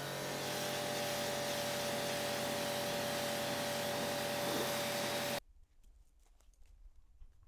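Pressure washer running and spraying its jet onto a mat, a steady hiss over a motor hum. About five seconds in the trigger is released and the sound cuts off suddenly, leaving a few faint clicks.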